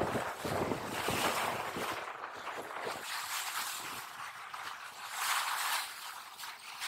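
Wind-driven waves splashing against a rocky reservoir shore, a steady rushing wash. Wind buffets the microphone for the first few seconds.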